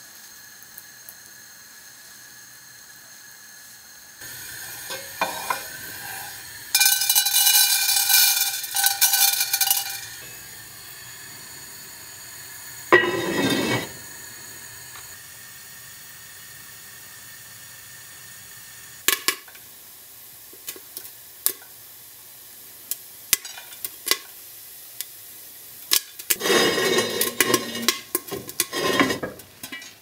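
Cooking at the stove: food sizzling and being stirred in a pot, with sharp clinks of a utensil against the pot, over a steady background hum. The sizzling swells twice, once in the first third and again near the end.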